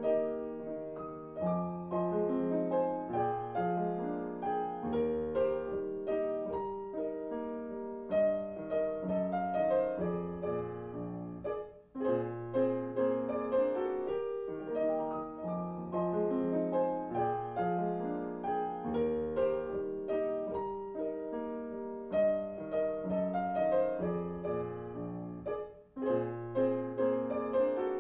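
Piano music: a flowing, tuneful accompaniment of many short notes, with a brief break about twelve seconds in.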